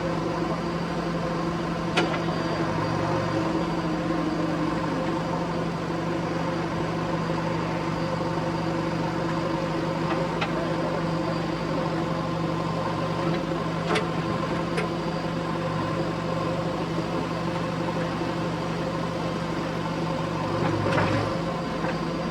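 JCB 3DX backhoe loader's diesel engine running at a steady speed, with a few sharp metallic knocks from the machine at work and a brief swell in the engine near the end.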